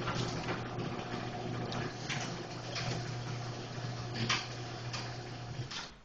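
Sears Craftsman 1/2-horsepower garage door opener running, pulling a sectional garage door down: a steady motor hum with irregular clicks and clatters from the door and track. It stops just before the end as the door closes.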